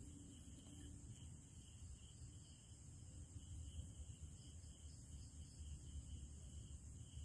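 Near silence: faint night-time ambience of insects chirping high up in an even pulse of about three a second, over a low rumble.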